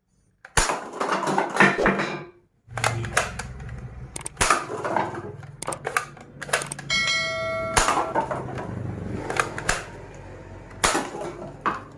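Plastic toy gun being handled and test-fired: a run of sharp clicks and clatter, with a brief ringing tone about seven seconds in.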